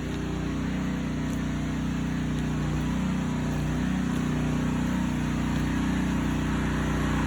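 An engine running steadily at a constant speed, a low even hum that does not change in pitch.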